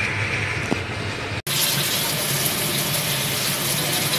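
Tap water running steadily into a stainless-steel sink as crabs are rinsed and scrubbed by hand under the stream. It starts at a sudden cut about a second and a half in, after a quieter steady noise.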